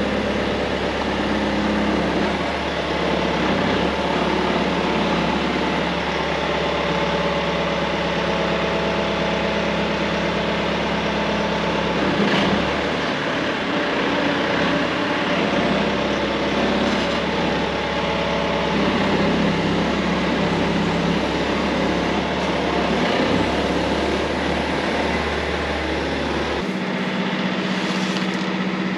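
Tractor engine running steadily under load, heard from inside the cab, with a constant low drone and mechanical noise; the deepest part of the drone drops away near the end.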